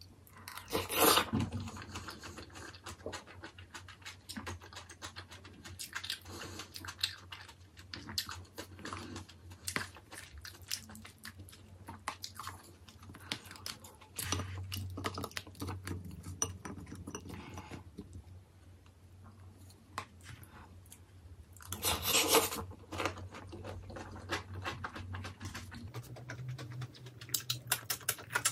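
Close-miked eating sounds: chewing and crunching mouthfuls of jjajang rice and tangsuyuk (sweet-and-sour fried pork), with many small clicks of spoon and chopsticks on the bowls. Two louder stretches, about a second in and again about three-quarters of the way through.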